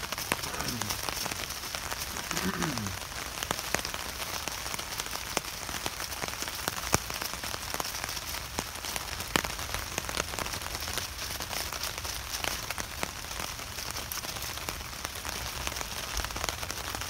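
Steady rain on the tarp overhead: an even hiss peppered with many small drop clicks. In the first three seconds there are two short sounds falling in pitch.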